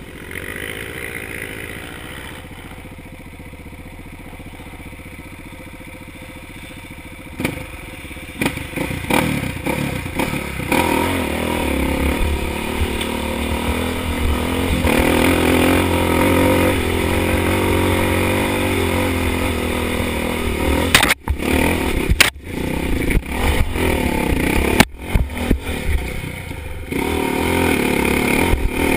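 Dirt bike engine heard from the rider's helmet: running at a low, steady level at first, then louder under throttle from about seven seconds in as the bike climbs a steep rocky trail, with stones clattering. The sound drops out for an instant a few times after about twenty seconds.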